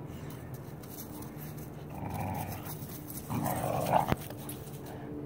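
Dogs growling while they play tug-of-war over a stick. The growling comes in two bouts, about two seconds in and again around three and a half seconds, the second louder, and ends with a sharp click.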